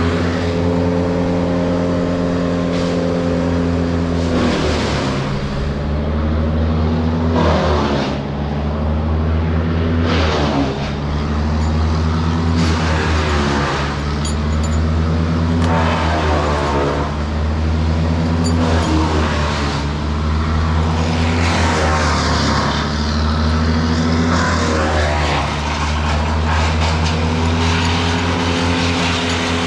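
Large diesel engine running at a steady speed under varying load; its note dips briefly several times. Short noisy bursts recur every few seconds over it.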